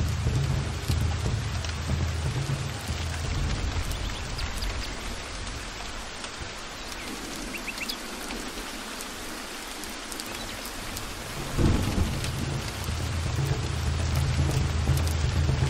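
Heavy rain falling steadily with rolling thunder. The rumble dies away around the middle, then a sharp thunderclap about three-quarters of the way through starts a fresh rumble.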